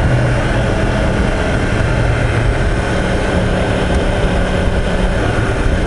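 A 2016 Yamaha YZF-R1M's crossplane inline-four engine running steadily at cruise, heard from on board the motorcycle under an even rush of wind and road noise.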